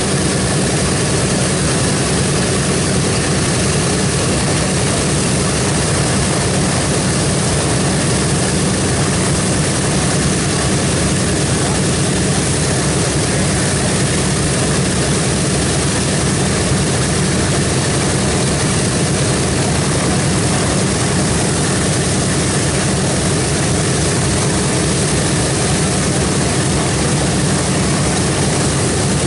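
The B-17G Flying Fortress's Wright R-1820 Cyclone radial piston engines running at idle with their propellers turning, a loud, steady, deep drone.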